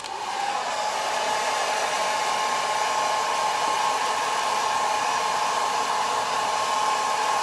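Handheld hair dryer running steadily, a rush of air with a steady whine, blowing hot air onto a cellophane shrink-wrap basket bag to shrink it.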